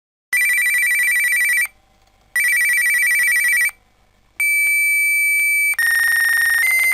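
Fax machine call: two warbling electronic ring bursts about two seconds apart, then a run of steady beeping tones that change pitch partway through.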